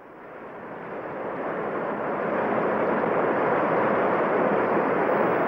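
Sound effect of Niagara Falls: a steady rush of falling water that swells in over the first couple of seconds and then holds.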